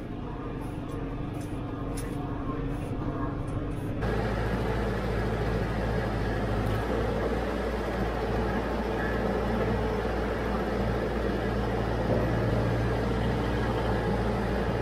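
Branson 5220 tractor's diesel engine running steadily while working a front-mounted root rake. About four seconds in the sound jumps abruptly to a louder, rougher drone.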